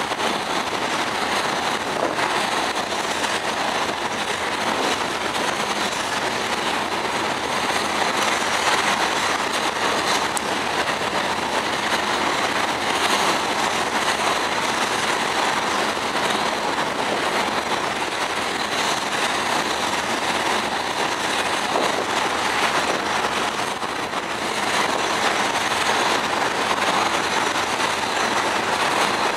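Freight train cars rolling steadily past, with steel wheels running on the rails.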